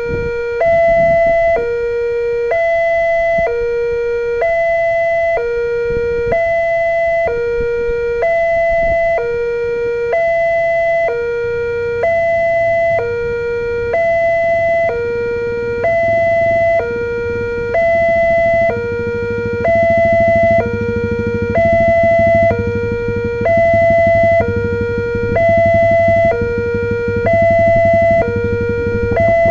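Electronic level-crossing warning siren from the crossing post's horn loudspeaker, alternating a low and a higher tone, about one pair every two seconds, warning that a train is approaching. A low steady hum joins about twelve seconds in.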